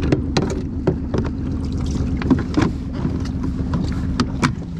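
A string of sharp knocks and clunks from a pedal-drive kayak and its gear being handled and launched at the water's edge, over a steady low rumble of wind on the microphone.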